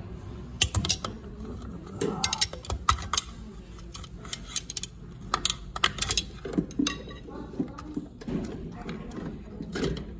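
Hard plastic clicks and rattles as the terminal cover with relay and thermal protector is worked loose and pulled off a refrigerator compressor's terminals, with irregular sharp clicks throughout.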